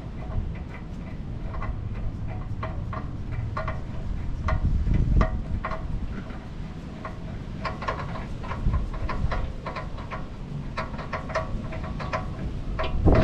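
Hand tools on a steel suspension bolt: a string of short metallic clicks and clinks as the bolt is worked loose, sparse at first and coming in quicker runs near the end, over a low rumble.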